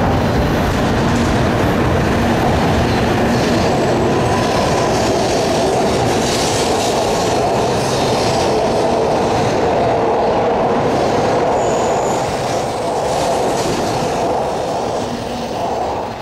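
An N700-series Shinkansen train running past close by: a loud, steady rush and rumble of wheels and passing cars that fades over the last few seconds as the end of the train goes by.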